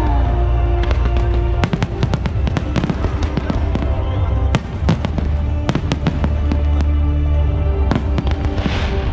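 Fireworks display: from about a second and a half in, a rapid series of sharp bangs and crackles over a deep, steady rumble of booms, with music playing underneath.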